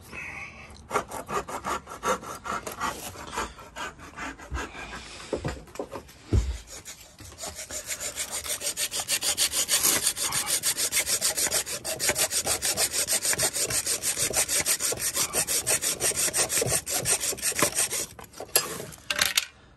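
Hacksaw blade cutting through a metal carpet-kicker part. Uneven strokes at first, then a steady, fast back-and-forth of about five strokes a second that stops shortly before the end.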